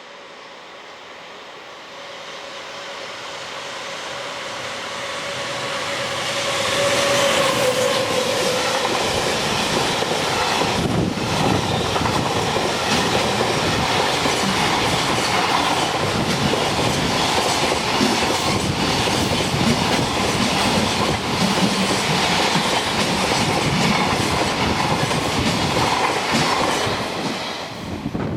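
Electric freight train passing at speed. The locomotive approaches with a steady whine that grows louder and drops in pitch as it goes by about seven seconds in. Then a long run of wagons rattles past with a clickety-clack over the rail joints, and the sound cuts off abruptly at the end.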